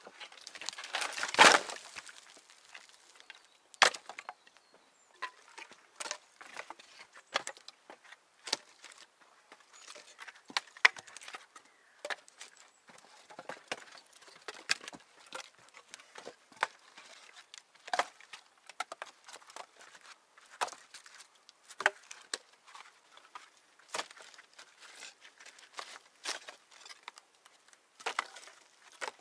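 Wood being worked by hand: irregular sharp knocks and snaps, with a louder rushing, crunching burst about a second and a half in.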